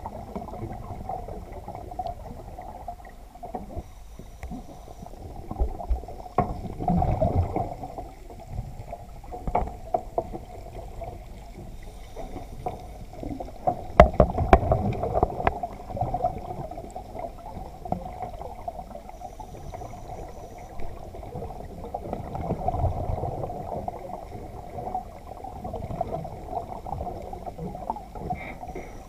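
Muffled underwater sound through a camera housing at a shark-cage float: water surging and sloshing over a steady hum, with a few sharp knocks and heavier surges, the loudest about halfway through.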